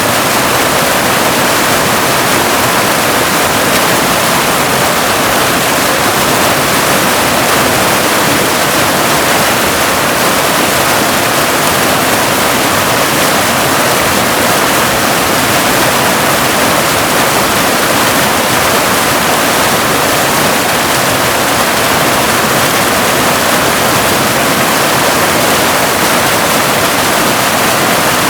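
Waterfall: a steady, unbroken rush of falling water, mostly hiss with little low rumble.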